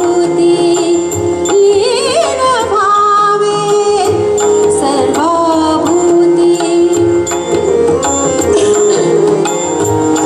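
Live Hindu devotional song (bhajan): a woman sings a gliding, ornamented melody over a held harmonium accompaniment, with tabla playing a steady rhythm beneath.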